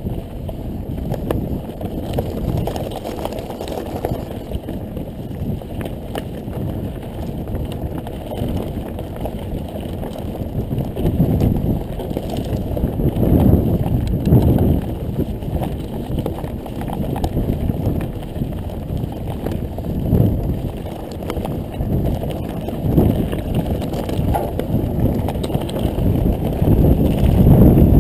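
Mountain bike riding over a rough trail: a steady rumble with irregular jolts and rattles as the bike goes over bumps, heavier about halfway through and again near the end.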